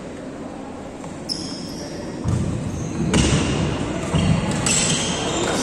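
Badminton doubles rally on a wooden court: sharp racket strikes on the shuttlecock, with players' shoes squeaking and thudding on the floor. It is quiet at first and grows busier about two seconds in.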